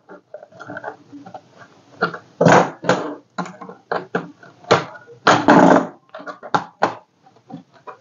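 Plastic bottom cover of a Dell Vostro 3400 laptop being pried off by hand and with a pry tool: a series of sharp clicks and snaps as its retaining clips let go. Louder, longer crackles come about two and a half and five and a half seconds in.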